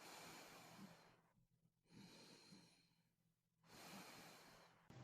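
Very faint, slow breathing: a few soft breaths in and out.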